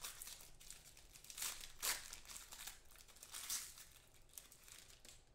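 Foil wrapper of an Upper Deck trading-card pack being torn open and crumpled by hand, crinkling in irregular bursts, loudest about two seconds in.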